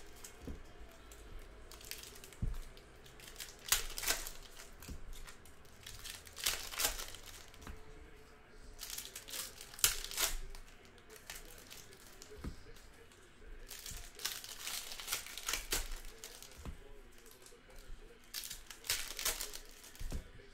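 Wrappers of NBA Hoops basketball trading card packs from a hobby box being torn open and crinkled, in short irregular bursts every few seconds.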